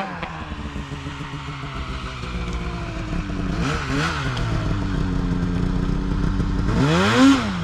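Two-stroke snowmobile engine running steadily, with a short rev about four seconds in and a louder rev that rises and falls near the end.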